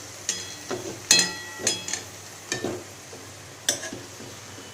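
A utensil scraping and clinking against a pan as mawa (milk solids) is stirred while it roasts: a series of irregular strokes, some with a brief metallic ring, the loudest about a second in.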